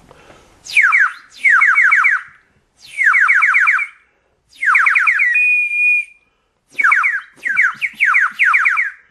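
A 3D-printed plastic whistle blown in several short bursts, each a quick run of falling chirps, about seven a second, with one steady held note about five and a half seconds in.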